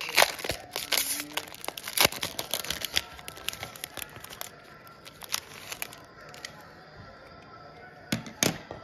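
Foil wrapper of a trading-card pack being torn open and crumpled by hand, a dense run of sharp crinkles and crackles that is loudest in the first few seconds, thins out, and flares briefly again near the end.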